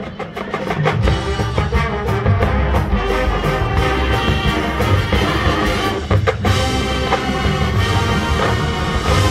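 College marching band playing live: brass chords with drums and percussion hitting sharp accents. The sound dips briefly at the start, then the full band comes back in within about a second.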